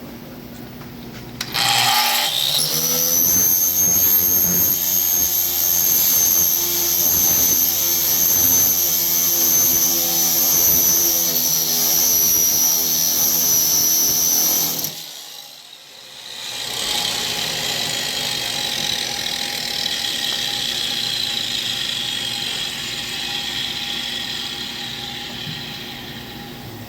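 A power tool spinning a friction shrinking disc against a steel car quarter panel, its heat shrinking high spots in the metal. It spins up to a steady high whine about a second and a half in and stops sharply about fifteen seconds in. It then runs again with a lower whine that fades toward the end.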